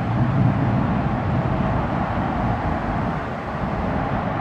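Heavy lorry's diesel engine pulling along a slip road, a steady low rumble mixed with passing traffic noise, slightly louder in the first second.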